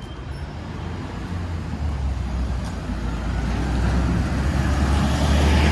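Engine of a heavy road vehicle running close by, a steady low hum under a rumble that grows louder toward the end as it draws nearer.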